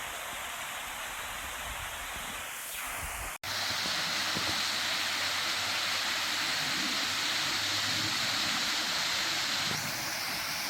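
Waterfall rushing: a steady wash of falling water. It cuts out for an instant about three seconds in and comes back a little louder.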